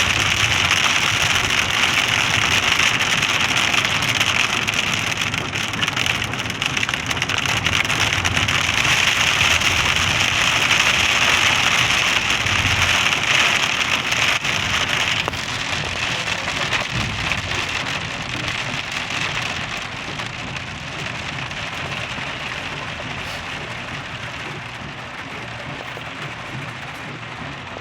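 Heavy rain pouring down, a steady hiss that eases off about halfway through and grows gradually quieter.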